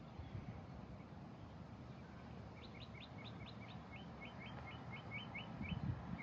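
A small bird singing a song of quick repeated notes, starting about two and a half seconds in: about six higher, sharper notes, then about eight slightly lower ones a little more spaced, over faint outdoor background noise.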